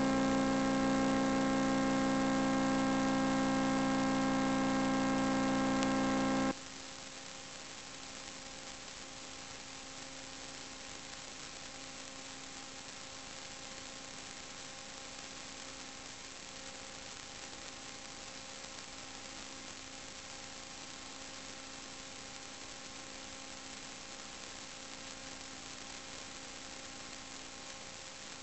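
Steady electrical hum with a buzzy stack of fixed tones on a vehicle camera recorder's audio. About six and a half seconds in it drops abruptly to a fainter hum over hiss, with no change in pitch.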